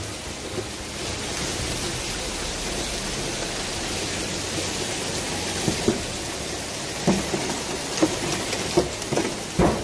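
Heavy rain pouring steadily, with a few sharp knocks in the second half.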